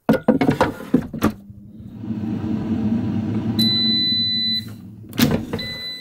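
Cosori air fryer: a few clunks of the plastic basket drawer, then its fan running steadily. About three and a half seconds in it gives a long electronic beep, and after another clunk a second beep near the end, signalling the end of the cooking cycle.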